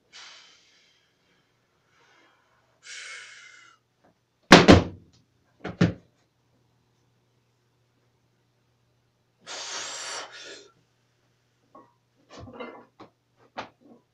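Loaded barbell knocking against a homemade wooden squat rack, two heavy clanks about four and a half and six seconds in, with short hissing breaths before and after and a few lighter knocks near the end.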